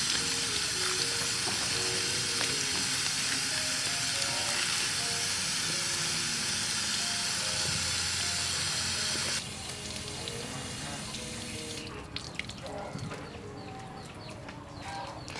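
Water from an outdoor tap running steadily over leaves and flowers being rinsed by hand, cutting off suddenly about nine seconds in; a light background melody plays throughout, and a few faint ticks follow the water.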